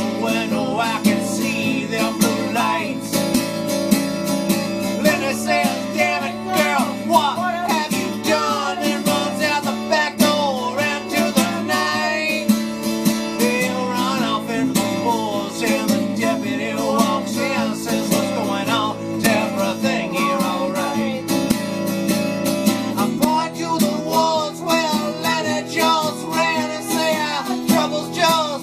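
Instrumental break of a folk-rock song: strummed acoustic guitar under a lead melody that bends in pitch, with the accompaniment shifting about 23 seconds in.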